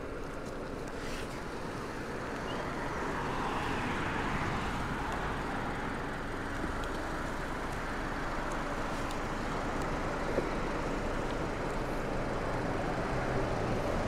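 Mercedes-Benz SLK convertible driving slowly up a paved driveway and pulling up, its engine running steadily at low speed.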